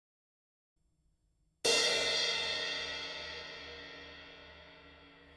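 A cymbal struck once about a second and a half in, then ringing and slowly fading away.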